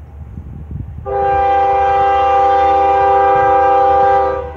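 CSX freight locomotive's air horn sounding one long, steady blast of about three seconds, a chord of several tones at once, starting about a second in and cutting off near the end.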